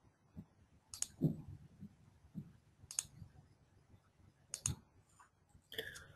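Faint computer mouse clicks, a handful of sharp single clicks a second or two apart, with a few soft low thuds between them, as menu items are clicked in the software.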